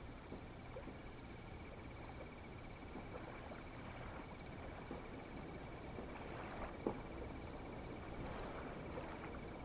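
Faint night ambience of crickets chirping, a steady high trill with softer pulsing chirps above it, with light rustling and a single small click about seven seconds in.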